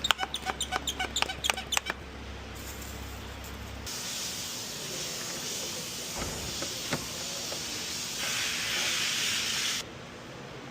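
A fast run of sharp ratchet-like clicks for about two seconds, then a steady spraying hiss of air or aerosol for about six seconds that grows stronger near the end and cuts off suddenly. A low hum stops about four seconds in.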